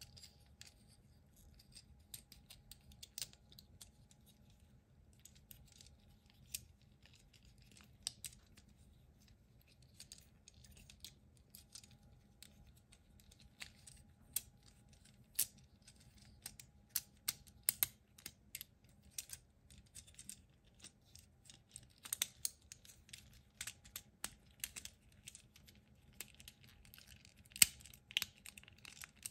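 Small plastic parts of a transforming toy ambulance clicking and snapping as it is folded from robot into van form. The clicks are sharp and irregular, sparse at first and coming thicker in the second half.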